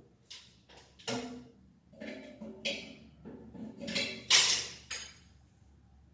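A series of clinks, knocks and scrapes as hard parts and tools are handled while a toilet's leaking flush mechanism is taken apart, the loudest clatter about four seconds in.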